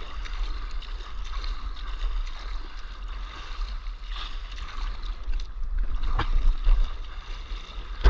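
Water rushing and splashing along the nose of a surfboard gliding over the sea, over a steady wind rumble on the board-mounted camera's microphone. The splashing grows louder for a moment about six seconds in.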